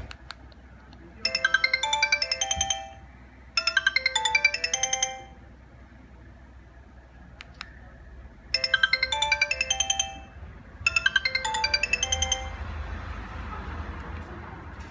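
Sony Ericsson K300i mobile phone ringtone: a short, fast, bright melody in two phrases, repeated after a pause of about three seconds. A steady background noise swells near the end.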